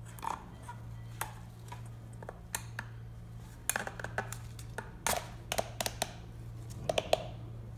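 Light plastic clicks and taps as a paper oil filter cartridge is worked onto the plastic centre tube of its housing cap by hand, in small clusters, over a steady low hum.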